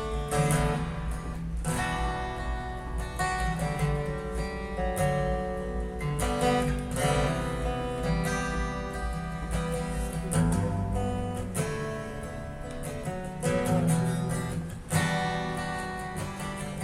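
Acoustic guitar strummed and picked in a steady rhythm, an instrumental intro before the singing comes in.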